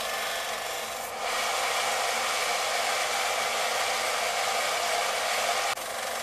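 Small benchtop belt sander running with a steel knife blade pressed against the moving belt, grinding the blade's bevel. It makes a steady grinding hiss over a constant motor hum. The grinding grows louder about a second in and drops off sharply just before the end as pressure on the blade eases.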